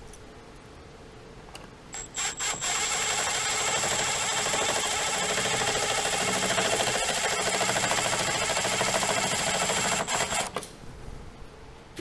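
Small electric power tool such as a cordless drill running steadily for about eight seconds with a high whine, after a few short blips about two seconds in.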